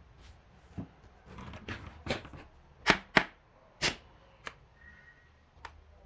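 Handling noise as a pair of steel pliers is picked up and brought to a small motor: an uneven run of sharp clicks and knocks, the loudest three close together about halfway through, with one more light click near the end.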